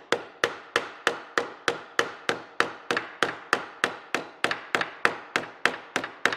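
A small ball peen hammer striking a sheet-metal rib flange against a wooden form block in a vise, in steady, even blows about three a second. The blows flatten the bent flange down onto the form, making a rounded edge straight and crisp.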